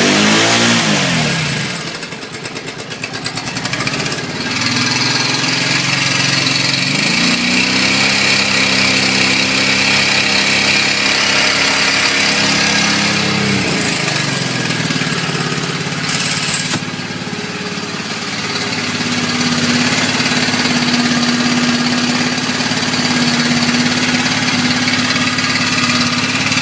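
Suzuki Boulevard C50's 800cc V-twin engine idling and being revved: a quick blip at the start, then revs held up for several seconds before dropping back to idle. It has the rattly, sewing-machine-like noise of a stretched rear cam chain slapping around.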